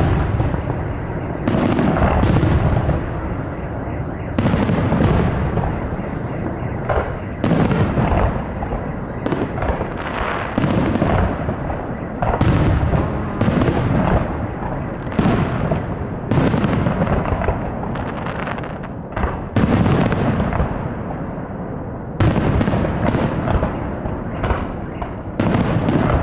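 Aerial firework shells bursting in a public fireworks salute: deep booms come one to two seconds apart at an uneven pace, each trailing off in a rolling echo, with a continuous rumble between them.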